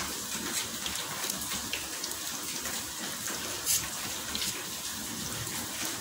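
Dough balls deep-frying in hot oil: a steady sizzling hiss with scattered crackles and pops, one louder pop a little past the middle.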